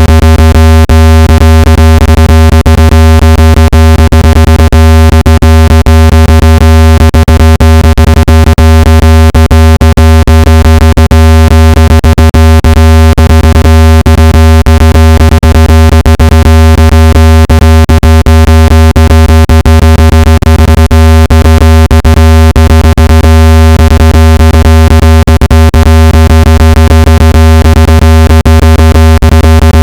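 Synthetic speaker-cleaning tone, played at full volume to shake dust and moisture out of a phone speaker: a loud, steady low buzz rich in overtones, with a rapid crackle of clicks running through it.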